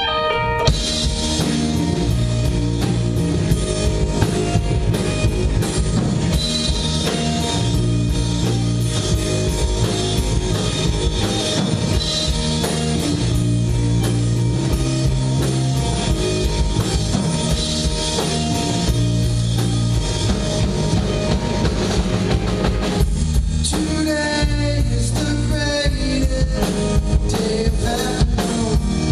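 Live rock band playing an instrumental passage: electric guitars over a drum kit and a steady bass line. A single guitar line is joined by the full band about a second in, and the drums and bass thin out briefly about three quarters of the way through.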